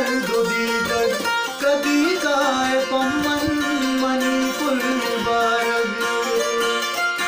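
Benju, the Baloch keyed zither, playing a plucked melody in a Balochi folk song.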